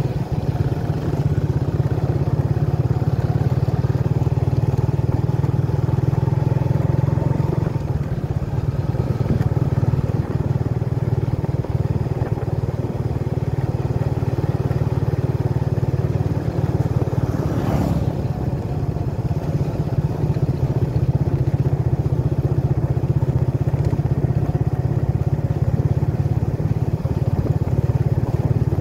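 Motorcycle engine running steadily under the rider while cruising at about 30 km/h, heard from the handlebars. A short, sharper noise stands out briefly about two-thirds of the way through.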